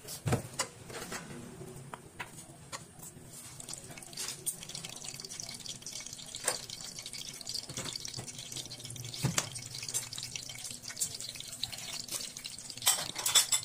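Hands working dry rice paper wrappers and spring-roll filling on a wooden cutting board: scattered crinkling clicks and small knocks, a louder knock at the start and a cluster of sharp clicks near the end, with a metal spoon scooping filling from a steel pot.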